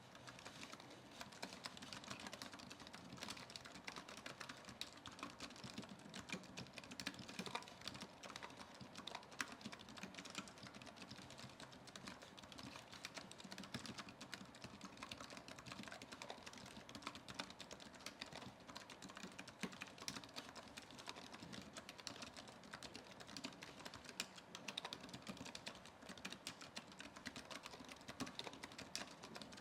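Typing on a Keychron B33 wireless keyboard with scissor-switch keys: a continuous stream of rapid key clicks.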